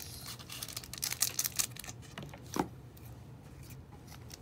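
Trading-card packaging being handled and opened: scattered light clicks, rustles and crinkles, with a sharper tap about two and a half seconds in.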